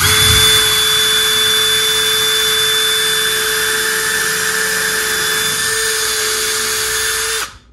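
Cordless drill in high gear running at a steady speed while a twist bit bores a pilot hole into a block of wood, a steady whine over the hiss of the bit cutting. It starts at once and stops suddenly about seven and a half seconds in.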